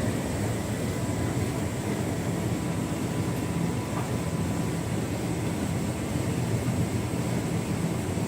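Hotpoint Ultima S-line tumble dryer running steadily on its warming cycle, the drum turning and the fan blowing out warm air, with an even low hum.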